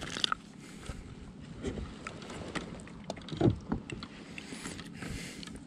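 Small knocks and clicks of handling gear in a kayak, over a low steady rush of water and air. There is a brief pitched sound about three and a half seconds in.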